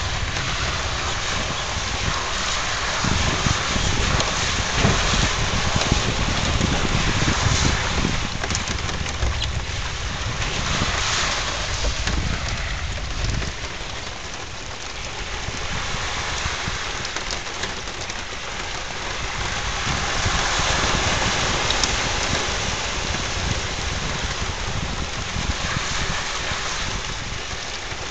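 Honda ATV running through floodwater, its engine under a steady wash of water noise; the low rumble drops and the sound gets quieter about halfway through.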